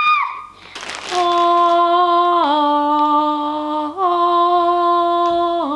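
A slow tune of long, steady held notes that steps down, back up, and down again between two pitches. A short breathy rush comes just before the first note.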